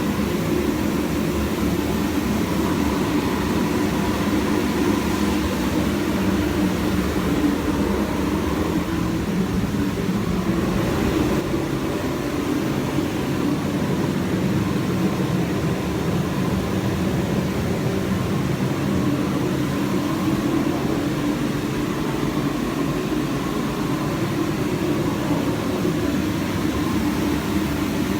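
Steady machine noise running at an even level throughout, low in pitch and without breaks.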